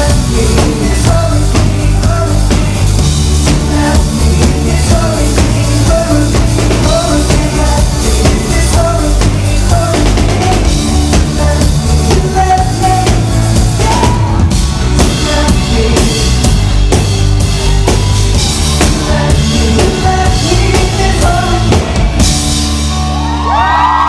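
A live pop-rock band plays loudly, with a drum kit and bass driving a steady beat and a sung vocal line. Near the end the drumming gives way to a bright cymbal-heavy final hit as the song ends.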